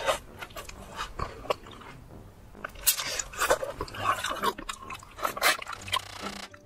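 A person chewing and biting fast food close to the microphone: irregular wet clicks, smacks and crunches from the mouth, busiest in the middle of the stretch.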